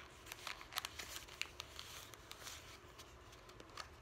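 Photo prints being handled and shuffled: faint paper rustling and flicking with short crisp ticks, thickest in the first second and a half, then a few more scattered ones.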